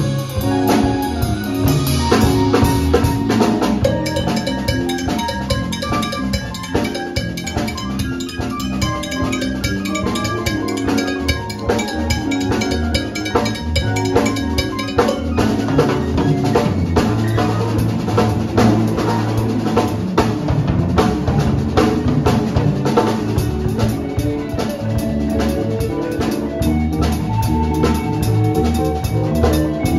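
A small live band plays: drum kit, electric bass, electric guitar and keyboard, with the drum kit prominent. The drumming gets busier about halfway through.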